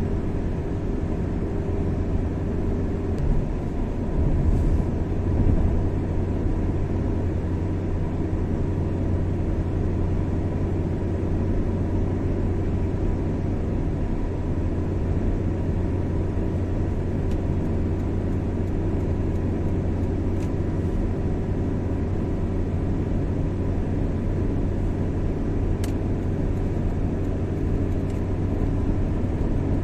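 A car driving steadily along a highway: a constant low drone of engine and tyre noise, swelling a little about four seconds in.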